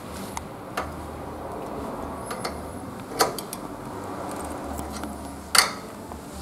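A few scattered metal clicks of a spanner working a training-wheel axle nut on a children's bicycle as it is tightened, the sharpest click near the end.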